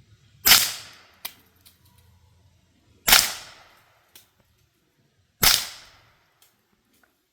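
Three suppressed shots from a CZ Scorpion Evo 3 S1 9mm carbine fitted with a Dead Air Mojave 9 suppressor, evenly spaced about two and a half seconds apart, each a sharp crack with a short tail. A fainter tick follows each shot. The suppressor is being fired wet, and the result is called still pretty quiet.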